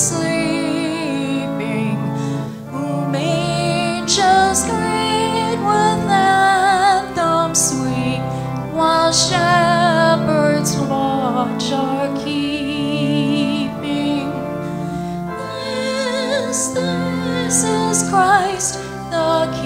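A slow, gentle carol sung by a solo female voice with vibrato over sustained instrumental accompaniment.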